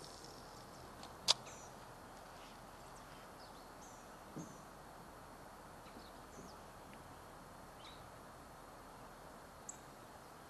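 Faint outdoor ambience: a steady low hiss with scattered short, high chirps. One sharp click about a second in, a softer thump around four seconds and a small tick near the end.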